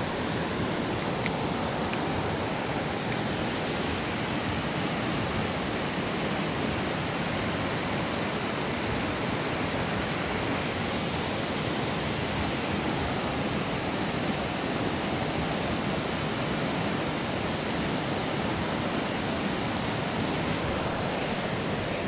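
Steady rush of a fast-flowing creek running high after heavy rain, its current churning white over the rocks.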